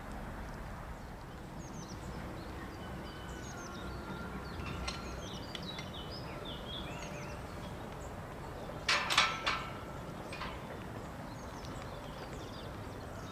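Small birds chirping in quick falling notes over steady outdoor background noise. About nine seconds in comes a sudden loud burst of three or four harsh strokes, with a fainter one a second later.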